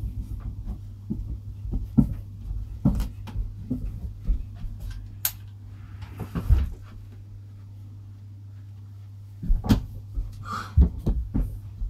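A handful of scattered knocks and clunks, like handling and a door or cupboard being moved, over a steady low hum, with a quieter gap in the middle.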